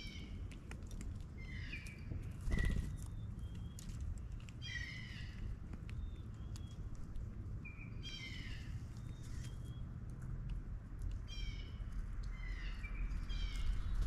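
Blue jays calling: harsh, downward-slurred 'jay' calls in short runs every couple of seconds, over a steady low rumble. A dull thump comes about two and a half seconds in.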